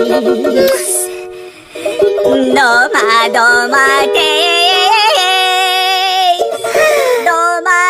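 Nursery-rhyme music: a sliding melody line over a steady accompaniment, with a short drop in level about one and a half seconds in.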